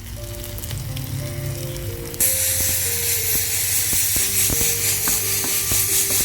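Tomatoes and spice powder sizzling in hot oil in a pan; the sizzle jumps in suddenly and loudly about two seconds in. Soft background music of held notes plays throughout.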